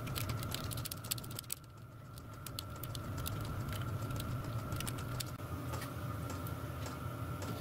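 Light metallic clicks and ticks of a small spanner on the brass nuts and bolts of a brass water-tender tank as they are undone, some in quick runs, over a steady background hum.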